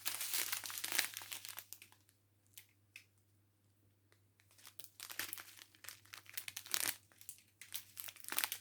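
Plastic packaging of a diamond-painting kit crinkling as it is handled: crackly rustling for about two seconds, a pause of about three seconds, then more rustling near the end.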